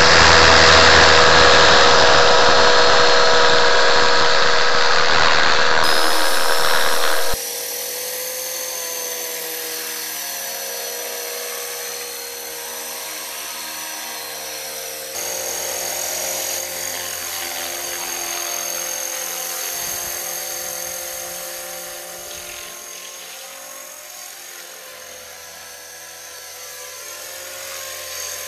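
Electric 450-size RC scale Bell 206 Jet Ranger helicopter (Align T-Rex 450 mechanics) flying. For about seven seconds its motor and rotors are heard loud and rushing through a camera mounted on board; then the sound drops suddenly to a steady whine of several pitches from the motor and rotors as it hovers low, fading a little past the middle and coming back near the end.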